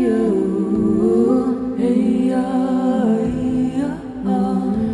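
A voice humming a slow melody that glides up and down over a steady held drone.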